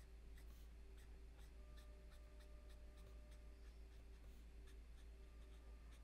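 Faint scratching of an OLO alcohol marker's tip stroking across cardstock in short, irregular strokes, over a low steady hum.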